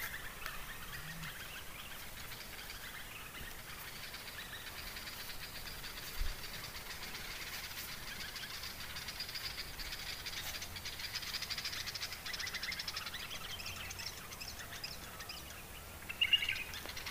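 Birds chirping steadily in the background, with a brief low thump about six seconds in and a louder call near the end.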